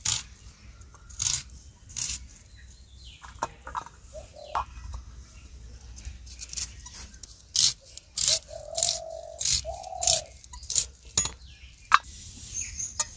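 A small knife cutting through a raw red onion held in the hand: a dozen or so crisp crunches at irregular intervals as slices are cut off and drop into a steel bowl.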